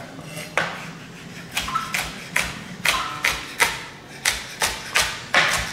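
Chef's knife rough-chopping small sweet peppers on a cutting board: about ten sharp knocks at an uneven pace.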